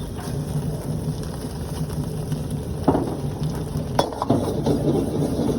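Mixed hakka noodles stir-frying in a wok: steady sizzling with a metal spatula scraping and tossing, and two sharp metal clanks about three and four seconds in.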